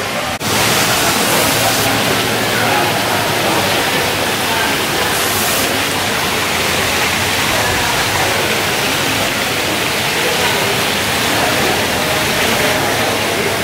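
Tiered stone fountain splashing steadily into its pool.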